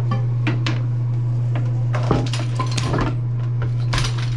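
A series of clinks and knocks from hard objects being handled, over a steady low hum.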